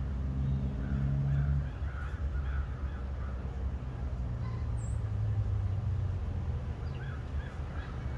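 A car engine idling steadily, with crows cawing repeatedly, in two runs of calls.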